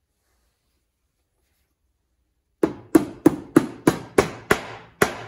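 A mallet tapping the crankcase cover of a Briggs & Stratton V-twin engine down onto its gasket and alignment pins, a run of sharp even blows about three a second starting about halfway in.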